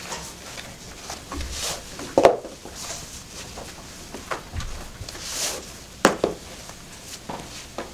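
Ankle boots being pulled off by hand, with rustling and scuffing. There are a few sharp knocks as the boots hit and are set down on a tiled floor, the loudest about two seconds in and about six seconds in.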